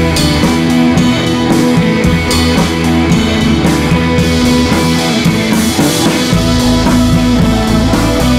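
Background rock music with guitar and drums, with a steady beat.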